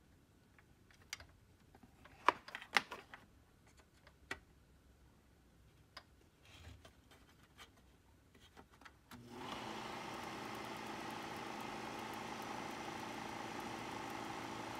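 Small clicks and taps of fingers handling the lamp and wiring inside an opened Kodak Carousel 850H slide projector, two sharper clicks a little over two seconds in. About nine seconds in, the projector is switched on and its fan motor starts and runs with a steady hum.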